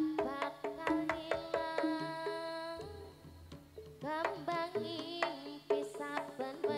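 Jaranan gamelan ensemble playing a quick rhythm of struck pitched metal notes and drum strokes. It thins out briefly around the middle, then comes back with a melody that bends in pitch.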